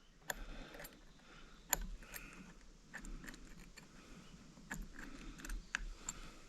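Scattered light metallic clicks and taps, about ten, from small tools and parts as a spring is worked back into place inside a Stihl 009L chainsaw.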